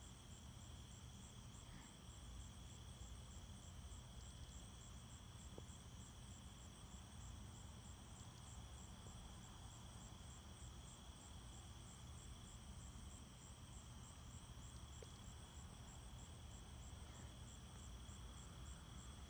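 Crickets chirping faintly: one steady high trill and a higher chirp pulsing at an even rhythm, over a low rumble.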